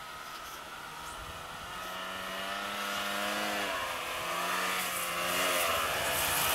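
Snowmobile engine running as the sled approaches through deep powder, growing steadily louder. The engine note breaks off briefly about halfway, then picks up again.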